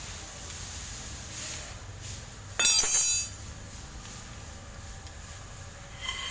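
Metal tools or engine parts clattering with a ringing clang about two and a half seconds in, lasting about half a second, then a lighter metallic ping near the end, over a low steady hum.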